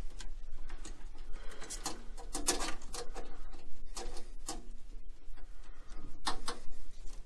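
Handling sounds of a hose being worked onto its fitting inside an open tankless water heater: irregular small clicks, taps and rustles of plastic parts and wiring, over a steady low hum.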